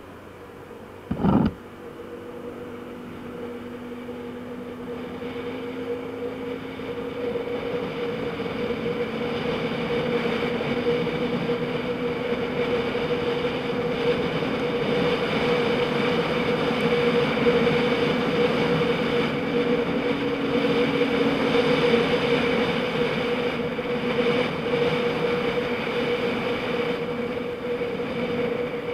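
Motor scooter riding along a road, heard from on board: a steady engine drone with wind and road noise that grows louder over the first ten seconds or so as it gathers speed, then holds. A brief thump comes about a second in.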